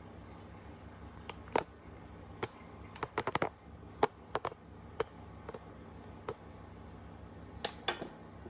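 Scattered light clicks and knocks from a phone camera being handled and repositioned, with a quick run of them about three seconds in. A steady low hum runs underneath.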